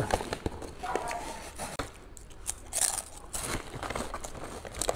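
Crunching of salted egg salmon-skin crisps being chewed, mixed with the crinkle of the foil-lined snack bag being handled, in short irregular crackles.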